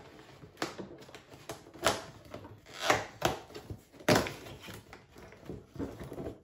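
Cardboard of an advent calendar crackling and tearing as a small numbered door is pried open by hand, in a string of sharp snaps and crinkles.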